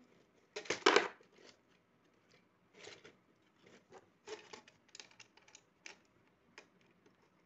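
Cutting pliers snipping and stripping the insulation off the end of a single-core electrical wire: one short snip about a second in, then scattered light clicks and rustles as the wire is handled.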